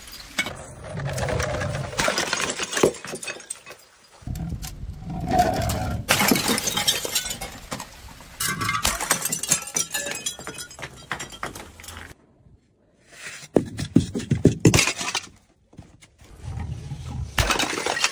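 Glass bottles thrown down concrete stairs, shattering one after another. Each smash is followed by shards clinking and skittering down the steps.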